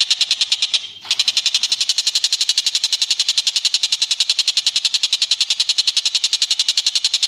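Recorded bird call played for song training: a long, fast, even trill of high notes at about a dozen a second, broken by a short gap about a second in.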